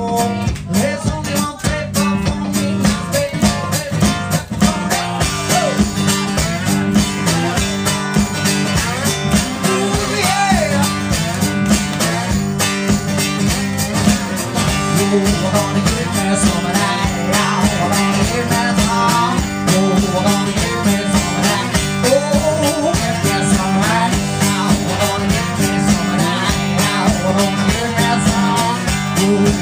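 A live blues song: guitar over a steady beat, with a man singing.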